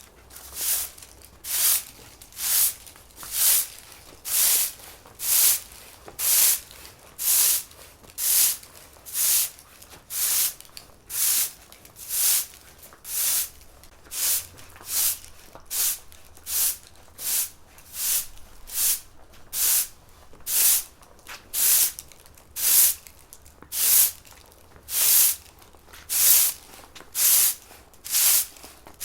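Broom sweeping a floor in steady, even strokes, about one swish a second.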